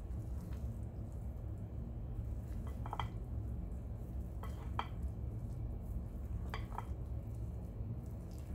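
A silicone spatula stirring a thick, crumbly carrot-cake mixture in a glass mixing bowl, with a few light clinks against the glass about three, five and seven seconds in. A steady low hum runs underneath.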